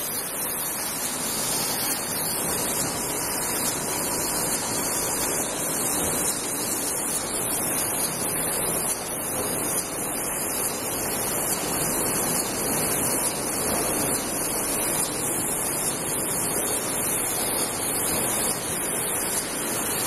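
Automatic bottle filling and capping line running: conveyor and rotary star-wheel capper making a steady, dense mechanical noise with a constant high hiss.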